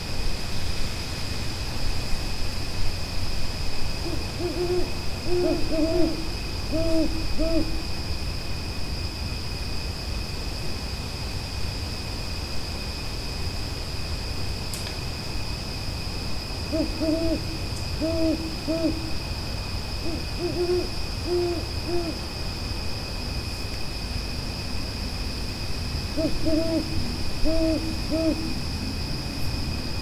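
An owl hooting in three bouts of quick, low hoots: the first a few seconds in, the next about halfway through and the last near the end. Under it runs a steady high-pitched drone.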